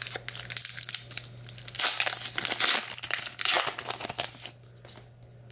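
Plastic-foil wrapper of a 2022 Topps Gypsy Queen baseball card pack crinkling and tearing as the pack is ripped open, in irregular crackly bursts that stop about four and a half seconds in.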